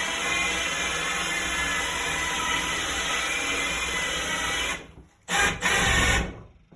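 Power drill spinning a 2-1/8 inch hole saw as its teeth cut into a wooden board. It runs steadily, stops about five seconds in, runs again in two short spurts, then stops once more just before the end.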